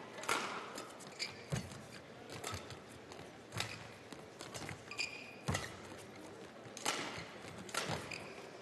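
Badminton rackets striking a shuttlecock back and forth in a rally, with a sharp crack roughly every second, and a few short high squeaks from shoes on the court floor.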